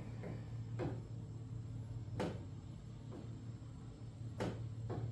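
Several light knocks and clunks, a second or two apart, with two close together near the end, over a steady low hum.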